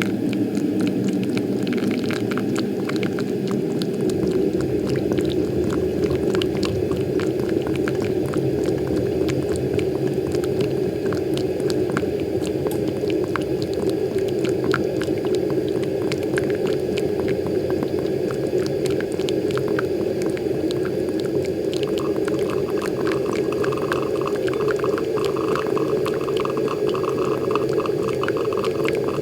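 Moccamaster KBGV Select drip coffee maker brewing: its heating element boils water up the riser tube with a steady bubbling and many small pops, as the water sputters out onto the coffee grounds. A higher gurgle strengthens about three quarters of the way in.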